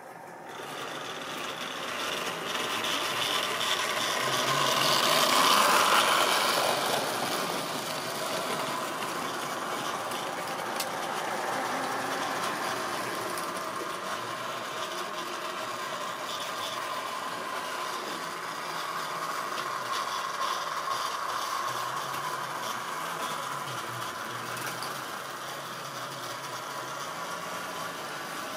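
A Tri-ang model goods train running past on the track, its wagons' wheels rattling steadily along the rails. The sound swells from quiet at the start to its loudest about five or six seconds in, then holds steady.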